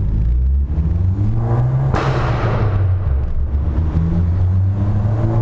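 Abarth 500's 1.4-litre turbo four-cylinder is revved up through a decat, straight-through Ragazzon exhaust, then gives one sharp, loud exhaust pop about two seconds in. After the pop it runs on at a lower, steady pitch. The pop is a deliberate, driver-provoked backfire that the missing catalytic converter allows; the owner calls it really loud.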